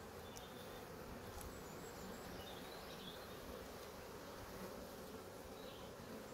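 Honey bees buzzing as a steady hum over an open hive, the frames thick with bees.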